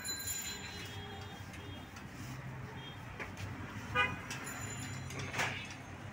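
Street traffic running steadily, with a short vehicle horn toot about four seconds in.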